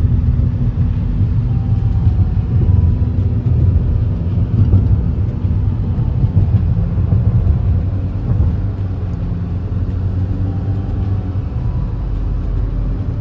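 Road noise inside a moving car: a steady low rumble of engine and tyres heard from the cabin.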